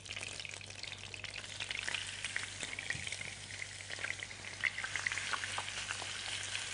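Spice-coated chicken fillet pieces sizzling and crackling as they are laid into hot fat in a frying pan, the frying getting louder as more pieces go in.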